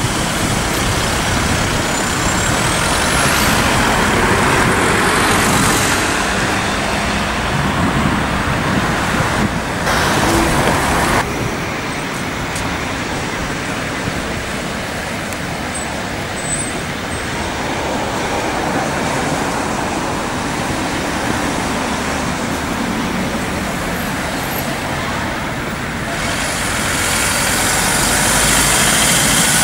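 Road traffic noise as Fiat Ducato ambulances drive past with no siren running, only their lights. The steady road and engine noise changes abruptly about 11 seconds in and again near the end.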